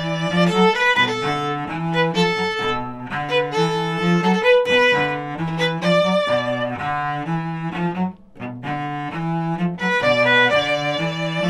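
Violin and cello duet played live: the cello bows a stepping bass line under the violin's melody, with a brief break about eight seconds in.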